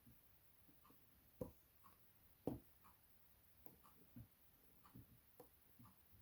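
Faint clicks and scraping from a bent hook pick working the pins inside an Evva DPS lock cylinder. Two sharper clicks come about a second and a half and two and a half seconds in.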